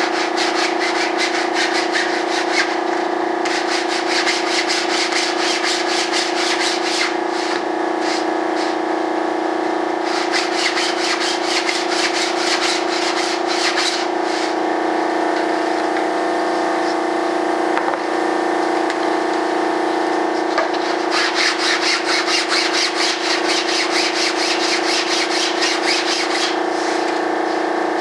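Sandpaper rubbed back and forth by hand over a model jet's stabilizer panel in quick strokes, about five a second, in spells of a few seconds with short pauses. A steady machine hum runs underneath.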